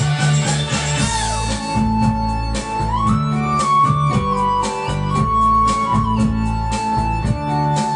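Background music: a melody line over bass notes and a steady beat.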